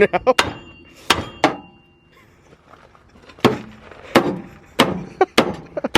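Hammer blows on steel front-suspension parts of a Crown Victoria, about nine sharp metallic strikes at an uneven pace with a brief pause near the middle, some leaving a short ring, as a stuck ball-joint assembly is beaten loose.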